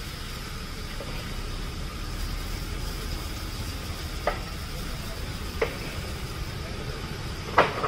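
Steady background hiss of a roadside food stall, broken by three short sharp clicks or clinks in the second half, the last one near the end the loudest.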